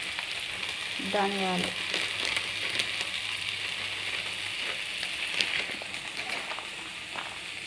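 Chopped vegetables and green chillies sizzling steadily in hot oil in a pan, with a few light clicks.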